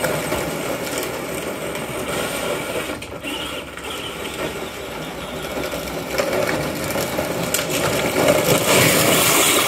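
Electric drive motors and gearbox of a kids' Peg Perego ride-on tractor, upgraded to an 18-volt DeWalt battery and 4000 rpm motors, running as it drives. The sound grows fainter as the tractor moves away, then louder as it comes back near the end.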